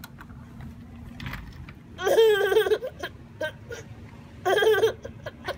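A baby's high-pitched excited squeals, two short wavering bursts about two seconds in and again near the end, over a faint steady hum.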